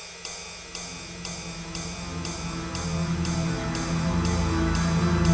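Background music building up: a crisp cymbal-like tick about twice a second over a low swelling tone, growing steadily louder.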